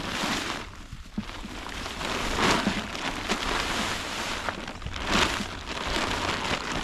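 Soil and compost spilling out of a tipped potato grow bag into a wheelbarrow: a pouring, rain-like hiss that comes in surges, loudest about two and a half and five seconds in.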